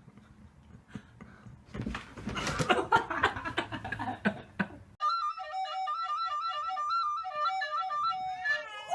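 Clattering and knocking for a few seconds, then a sudden switch to a short instrumental melody of quick, stepping notes.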